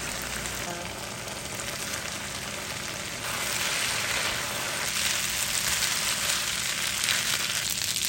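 Food sizzling and frying in a hot pan, the sizzle getting louder about three seconds in.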